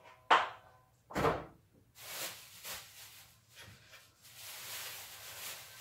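Two sharp knocks about a second apart, the second with a low thud, then an uneven rushing hiss.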